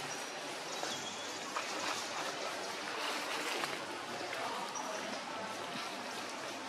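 Steady outdoor background hiss, with a few short high chirps.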